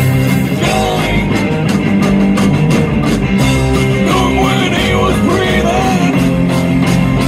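Live rock band playing loud and steady through small outdoor amps: upright bass, electric and acoustic guitars, banjo and drums, with a sung vocal over them.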